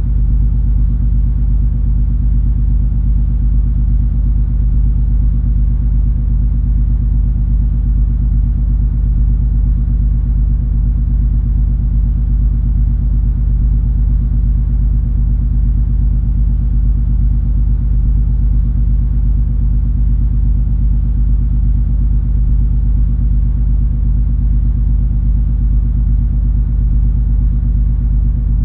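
Cruise ferry underway: a steady, deep engine drone and rumble, with a low hum that holds one pitch and never changes.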